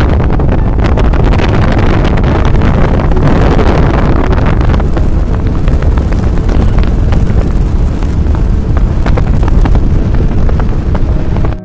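Loud wind buffeting the microphone on a moving motorbike, with the bike's running and road noise beneath; it cuts off suddenly near the end.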